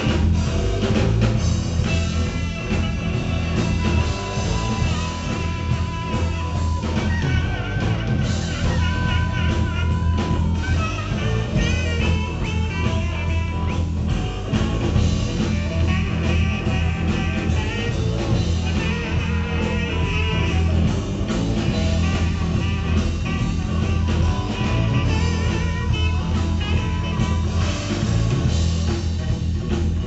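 Live blues band playing, with electric guitars, drums, saxophone and harmonica.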